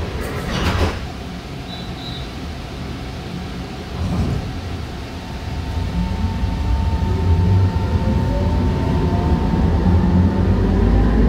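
Alstom Citadis light rail train heard from inside the car, pulling away from a station: its electric traction motors whine in several tones rising steadily in pitch as it accelerates, over a low rumble that grows louder. A brief clatter near the start and a short high beep about two seconds in come before it moves off.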